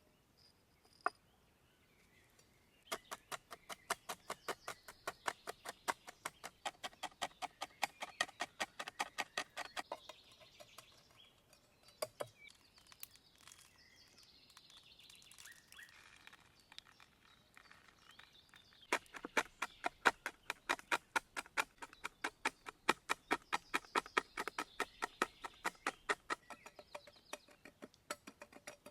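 Rapid, even tapping strokes, about five a second, in two long runs, with birds chirping faintly in the background.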